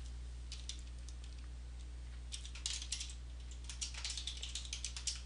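Typing on a computer keyboard: a few scattered keystrokes at first, then a quicker run of keystrokes from about two seconds in, over a steady low hum.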